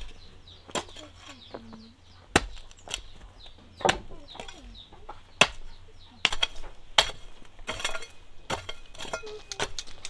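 Sharp knocks at uneven intervals, roughly one every second or so, with chickens clucking between them and small birds chirping.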